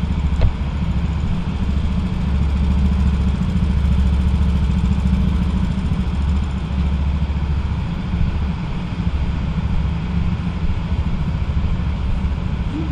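Go-kart engines running in the pit lane with a steady low rumble.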